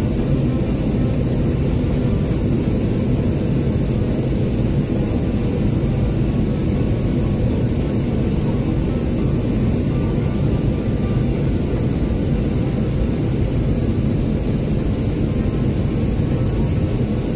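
Steady low rumble inside a jet airliner's cabin in flight above the clouds: engine and airflow noise with no changes.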